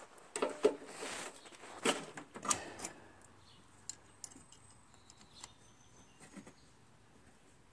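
Metal clicks and clanks of pliers gripping and working the caster-wheel lock lever and cable on a Honda HRZ216 mower, several sharp knocks in the first three seconds, then only a few faint ticks. The cable won't move in or out, which the owner thinks means it has seized.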